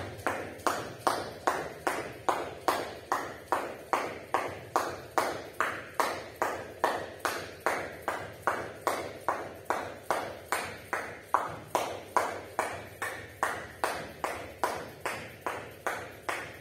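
Jump rope in steady use: the rope slaps the floor mat and the jumper lands on each turn, a regular beat of about two and a half per second, each strike dying away quickly.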